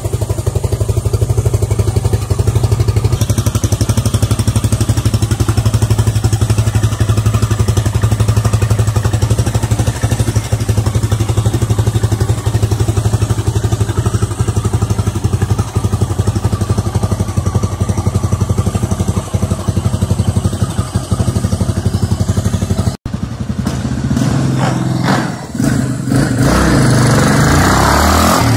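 Suzuki DR 800 Big's 779 cc single-cylinder engine idling steadily with an even, rapid thump. About 23 seconds in the sound breaks off sharply, and the motorcycle is then heard revving and being ridden off.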